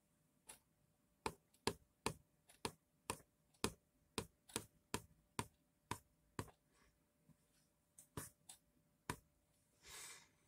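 A run of sharp, irregular clicks or taps, roughly two a second, that stops about nine seconds in; a short, soft brushing sound follows near the end.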